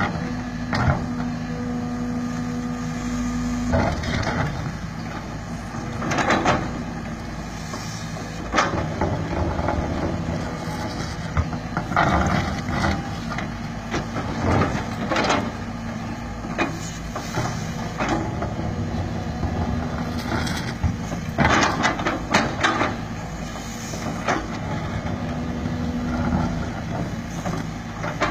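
JCB JS205 tracked excavator's diesel engine running steadily under digging load, with repeated irregular scraping, knocking and crunching as the bucket digs into rocky soil.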